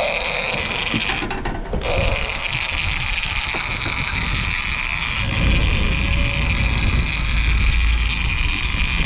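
Motorboat under way: the outboard engine running, water rushing along the hull and wind buffeting the microphone, with a steady high whine throughout. The low rumble grows stronger about five seconds in.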